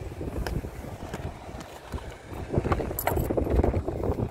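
Wind buffeting the microphone in gusts, with a few light knocks and clicks from the black plastic air-conditioner shroud being handled.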